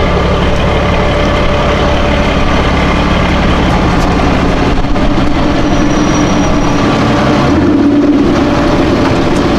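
Vehicle engine running steadily close by at low revs. About seven seconds in the low hum fades and a higher engine note swells briefly.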